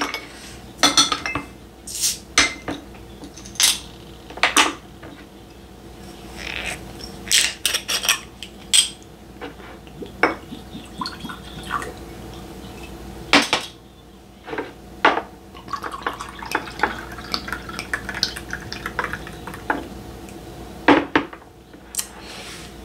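Soju and beer being poured into a drinking glass to mix somaek: pouring liquid, with glass bottles and the glass clinking and knocking sharply many times.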